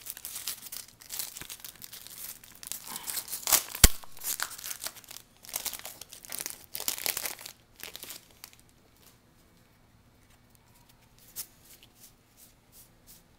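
Foil wrapper of a jumbo pack of trading cards crackling and crinkling as it is torn open and handled, with a sharp snap about four seconds in. After about eight seconds it gives way to a few faint clicks.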